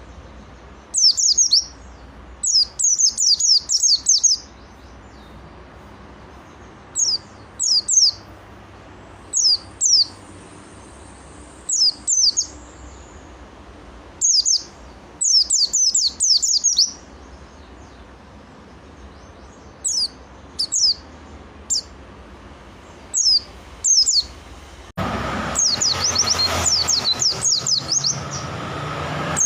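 Pleci (white-eye) songbird singing in short bursts of high, quick down-slurred chirps, a few notes at a time with pauses between. Near the end the chirping becomes a dense, continuous run over a louder background hiss.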